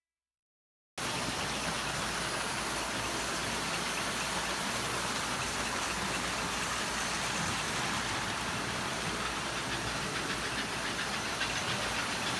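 Toy train running on its track layout: a steady whirring, clattering noise that cuts in suddenly about a second in.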